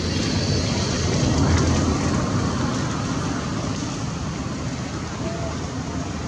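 Steady outdoor background rumble with a hiss, swelling slightly for a moment about a second in.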